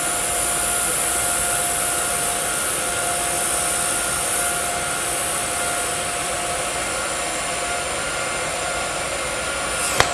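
TIG welding arc running steadily on a vertical-up root pass, a continuous hiss with a thin steady whine. A sharp click comes near the end as the arc goes out.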